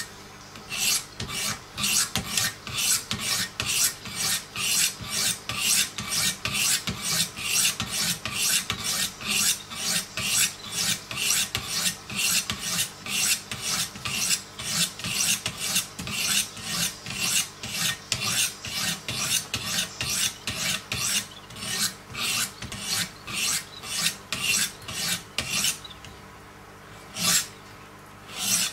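Coarse 100-grit diamond stones of a Wicked Edge guided sharpener rasping along the edge of a clamped Hogue EX-03 knife blade in quick regular strokes, about two a second. The strokes pause near the end, then two more follow.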